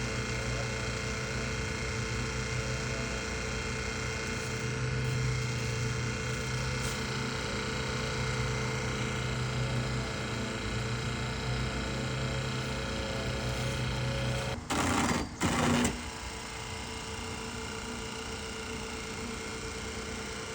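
Small engine driving the hydraulic jacking system runs steadily while the pier jacks push the leaning chimney back toward plumb. About fifteen seconds in come two short, loud noisy bursts, and after them the engine's low hum is weaker.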